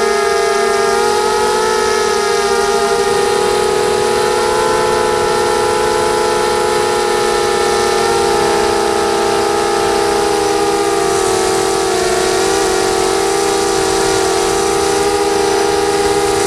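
Mini quadcopter's four brushless motors and propellers whining steadily in flight, several close tones drifting slightly up and down in pitch with the throttle, heard from the camera on board.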